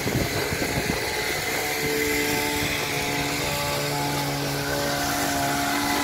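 Small engine of a hand-held hedge trimmer running steadily while trimming a hedge, its pitch shifting slightly now and then.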